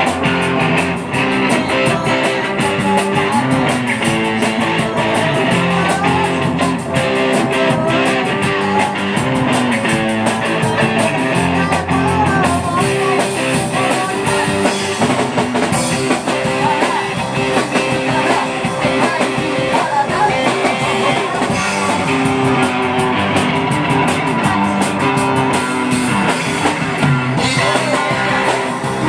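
Live rock band playing: electric guitars and drums, with a woman singing.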